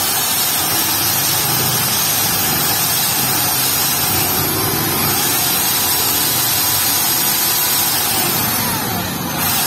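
Steady, loud motor-vehicle engine noise, with engines rising and falling in pitch as they pass. It dips briefly near the end.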